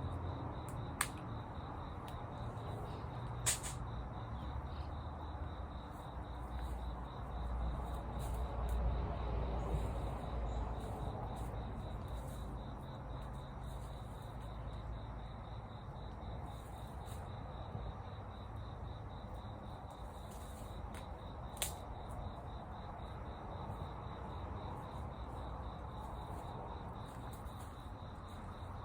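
Crickets or similar insects trilling steadily in one high continuous note, over a low outdoor rumble that swells briefly midway. Three sharp pops stand out, one about a second in, one near 3.5 s and one past 21 s, like wood cracking in a campfire.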